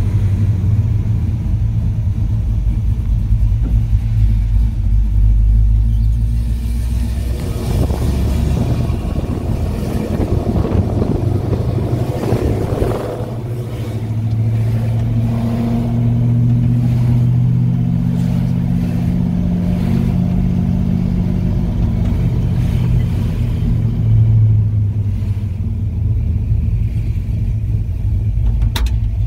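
A small-block V8 with headers and dual exhaust, the 1963 Chevrolet C10's 355, running with the truck on the move: a continuous low exhaust rumble. It builds in the middle, dips briefly about halfway through, then settles into a steady drone.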